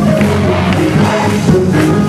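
Gospel choir singing with instrumental backing and a tambourine.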